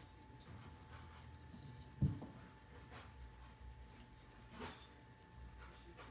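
Hampden 17-jewel mechanical pocket watch ticking, a fast, even, faint tick from the serviced movement running. About two seconds in there is a dull bump, and a little later a brief rub, as the watch is handled.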